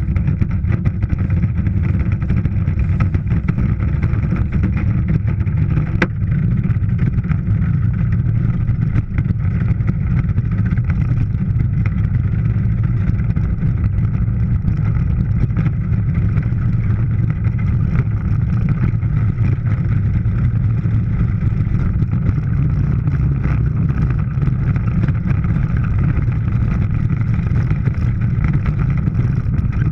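Bobsled running down an ice track, heard from inside the sled: a loud, steady rumble of the steel runners on the ice with the hull rattling and vibrating.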